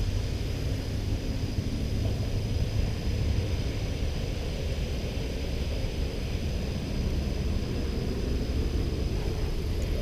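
Steady low rumble with a light hiss over it and a faint, steady high tone.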